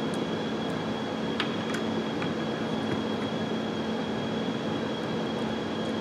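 Steady background hum with a thin high-pitched whine, and a few faint clicks as a stubby screwdriver works the small screws out of the front of a shift knob.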